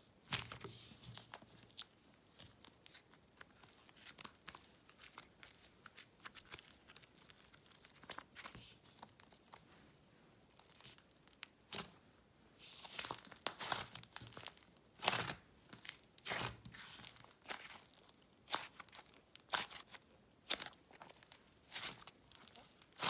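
Butter slime being stretched and pressed by hand: soft, sticky crackles and small clicks, sparse at first and more frequent in the second half.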